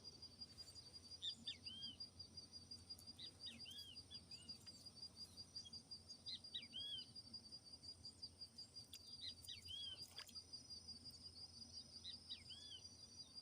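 Faint natural ambience: a bird gives short arched chirps in small clusters about every three seconds, over a steady, high, fast-pulsing trill.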